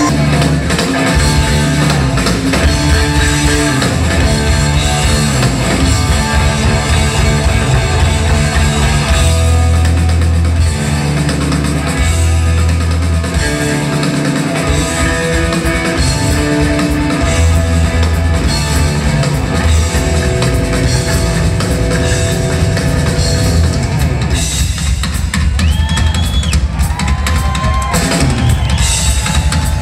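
Rock band playing live and loud, with drum kit, electric guitars through Marshall amps, and bass. Near the end the music thins out to mostly drums, with sliding pitched tones above them.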